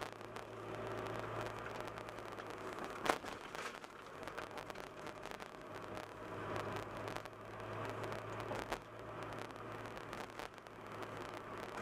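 Car driving along a city street: steady engine hum and tyre noise. A sharp click about three seconds in, and a fainter one near the nine-second mark.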